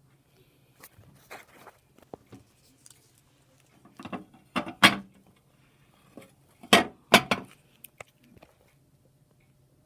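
Handling noise: a scattered series of clicks, knocks and rattles, the loudest knocks about five and seven seconds in, over a faint steady low hum.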